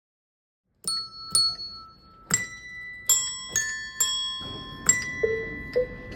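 A pitched metal percussion instrument struck one note at a time, about eight strikes, each note ringing on and overlapping the next to form a slow tune. Two short, lower notes sound near the end.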